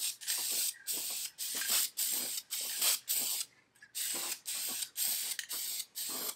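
Aerosol can of high-gloss black enamel spray paint being sprayed in short hissing bursts, about two or three a second, with a brief pause a little past halfway.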